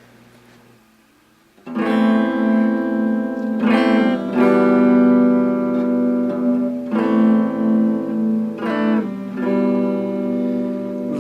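Acoustic guitar strumming sustained chords as a song intro, starting about a second and a half in.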